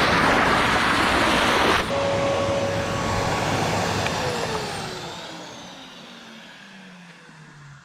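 A loud motor-driven machine running, then switched off about two seconds in, its motor winding down with a falling whine that fades away over several seconds.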